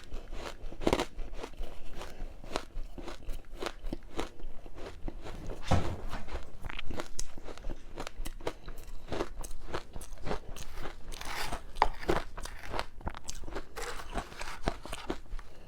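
Close-miked crunching bites and chewing of powdery, matcha-powdered ice, many irregular crunches in quick succession.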